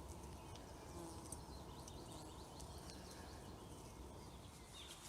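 Faint woodland ambience with scattered distant bird chirps over a low steady background hum.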